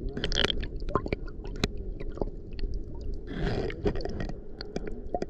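Underwater sound of shallow sea water heard through a submerged camera: a steady low rumble with many scattered sharp clicks and crackles, and two short hissing, gurgling bursts of moving water, one just after the start and a longer one a little past the middle.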